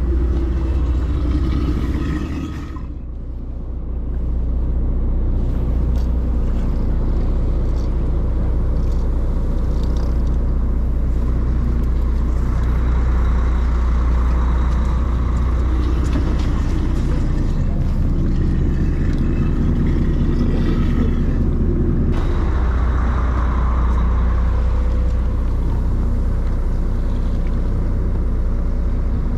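Fishing boat's engine running with a steady low rumble, heard from on deck; it drops away briefly about three seconds in, then returns.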